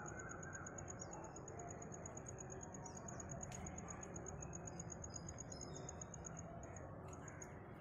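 A high, fast, evenly pulsed chirping that keeps up until near the end, with a few short bird chirps in the second half over faint outdoor background noise.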